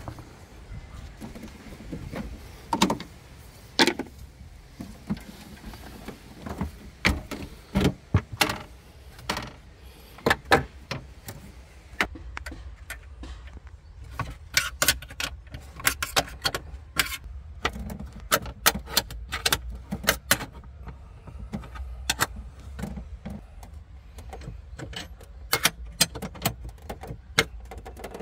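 A combination wrench clicking and clinking on the nuts of the air-suspension compressor cover in the spare-wheel well. A few separate knocks come first, then frequent quick metal clicks through the second half, over a steady low rumble.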